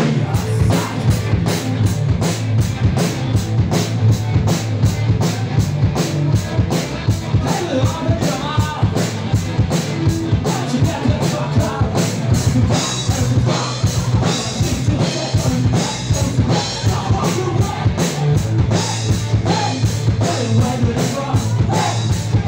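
A rock band playing hard rock live: a steady, driving drum-kit beat with electric guitars and bass guitar.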